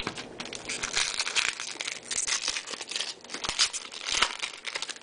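Foil wrapper of a baseball-card pack crinkling and crackling as it is opened by hand.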